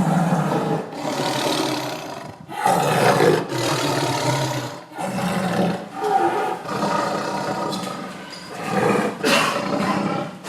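Tiger roaring, about five roars in a row, each lasting a second or two with short breaks between them.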